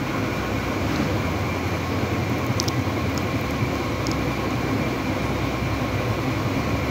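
Chicken simmering in yogurt gravy in a karahi, bubbling and sizzling with a steady crackling hiss.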